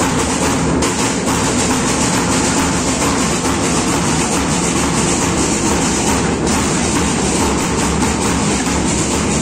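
Marching drum band of bass drums and smaller drums playing a loud, dense, steady beat.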